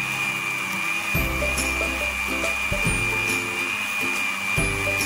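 Electric blender running steadily with a high, even motor whine as it blends strawberries and water, over background music with shifting low notes.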